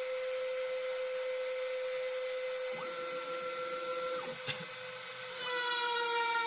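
Russian-made rotary tool, serving as the spindle of a homemade CNC router with a two-flute cylindrical bit, running with a steady whine. A second, higher tone joins for about a second and a half partway through, a click follows, and near the end the tone changes and grows a little louder as the machine starts its first trial run.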